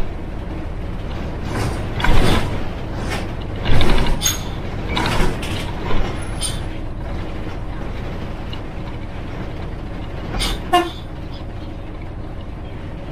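Yangtze River Jingcheng front-engine city bus running, its engine droning steadily, with several short loud hissing bursts from its air brakes over the first half and again near the end. A brief squeal sounds about eleven seconds in.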